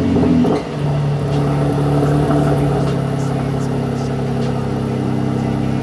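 Mercedes-AMG C43 with the AMG performance exhaust in its 'Powerful' setting, the engine running with a steady exhaust drone at constant revs after a brief change near the start; the revs begin to climb again right at the end.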